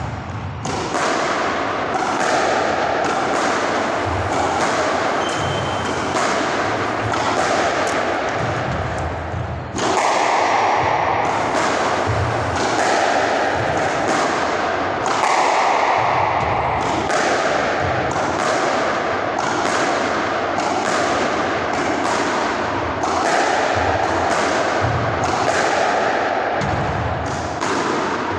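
Squash ball being struck by a racket and hitting the court walls over and over in a quick, steady run of sharp thuds, each one echoing in the enclosed court.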